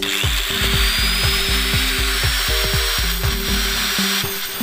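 Electric angle grinder running with a loud hiss and a high whine that climbs a little in pitch, over background music with a steady beat; the grinder noise drops away about four seconds in.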